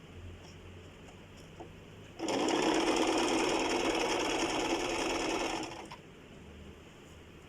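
Sewing machine running for about three and a half seconds, starting about two seconds in and then stopping: a steady stretch of stitching.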